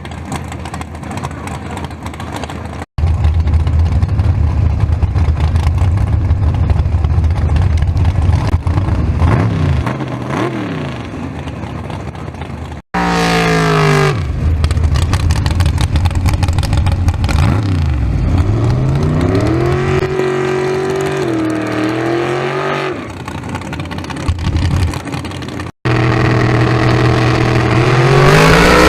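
No-prep drag race car engines revving and accelerating, their pitch climbing steeply, dropping and climbing again, in several short clips cut together. A low steady rumble comes first, and the loudest run builds near the end.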